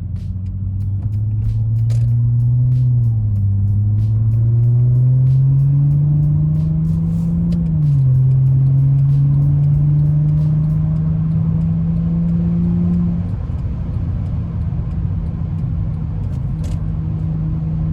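Mercedes-Benz C300's V6 engine accelerating, its note climbing, dropping sharply at an upshift about three seconds in and again about eight seconds in, then holding steady and easing off after about thirteen seconds. The throttle is sharpened by a Pedal Commander controller in sport mode.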